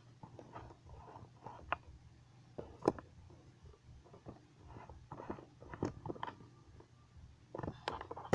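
Irregular clicks and knocks of an electric sewing machine being handled and adjusted during setup, the sharpest about three seconds in and near the end, over a low steady hum.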